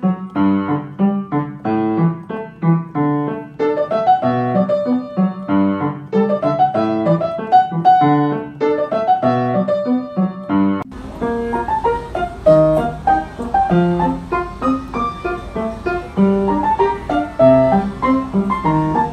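Background piano music: a lively tune of short, quick notes. About eleven seconds in, a faint steady hiss joins underneath.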